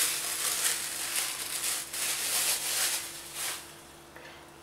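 A thin plastic bag crinkling and rustling as it is handled and crumpled, with irregular crackles; it dies away about three and a half seconds in.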